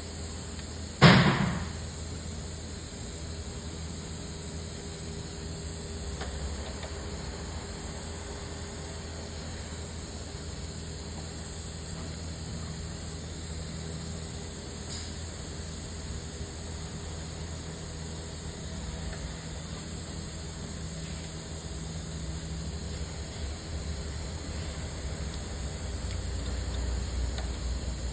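Steady background hiss with one sharp knock about a second in, from hand-tool work fitting the drive belt over the engine's pulleys with a pry bar on the tensioner.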